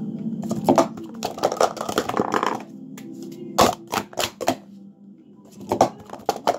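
Plastic sport stacking cups clacking rapidly as they are stacked up and down on a stacking mat. The clacks come in quick bursts, with a short lull a little past the middle.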